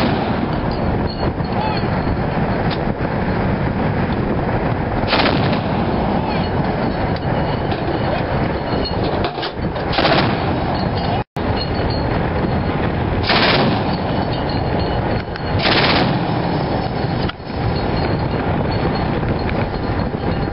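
ZU-23-2 twin-barrel 23 mm anti-aircraft autocannon firing long bursts of automatic fire, with several louder bursts standing out.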